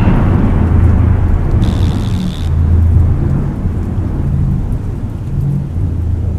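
A loud, deep, noisy rumble that rolls on and slowly fades, following a crash just before it.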